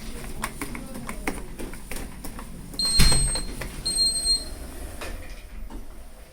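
Arona 3G passenger lift at the landing: a string of light clicks and knocks from its doors and mechanism, a thud about three seconds in, and two short high electronic beeps about a second apart.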